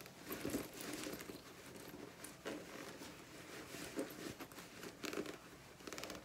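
Faint rustling and crinkling of fabric being handled by hand, with a few short clicks, as a zipper is worked open inside a bag clipped together with sewing clips.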